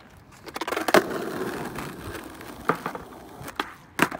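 Skateboard wheels rolling over rough, cracked asphalt, then several sharp clacks near the end as the board's tail is popped for a kickflip and the board strikes the ground.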